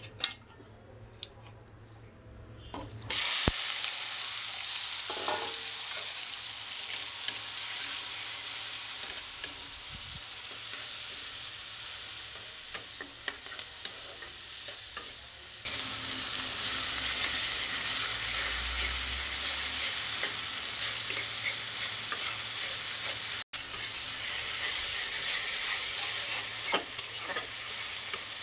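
Cubed potatoes, eggplant and green chillies frying in hot oil and spice paste in a wok, with a steady sizzle and the scrape of a spatula stirring them. The sizzle starts suddenly about three seconds in, after a few light clicks, and grows louder about halfway through.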